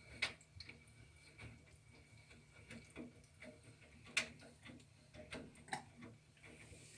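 Bosch Serie 6 front-loading washing machine mid-cycle: irregular light clicks and knocks as the drum turns the wet laundry, over a low steady hum. The two sharpest clicks come just after the start and about four seconds in.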